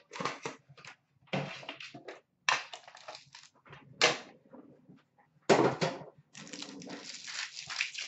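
Hockey card packaging being handled and opened: a run of short crinkling, scraping and knocking noises, a louder crackle about five and a half seconds in, then a longer stretch of crinkling near the end.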